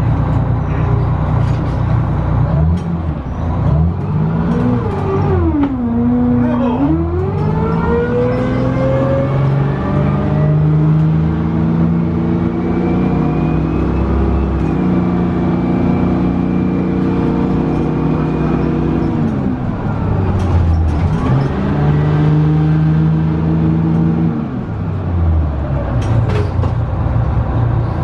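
Detroit Diesel 6V92TA two-stroke V6 diesel of a 1990 Orion I bus, heard from inside the cabin, pulling under load. The engine note sinks about five seconds in, then climbs for more than ten seconds with a high whine rising alongside it. It drops abruptly near the middle as the Allison automatic shifts up, climbs again, and dips once more with another shift near the end.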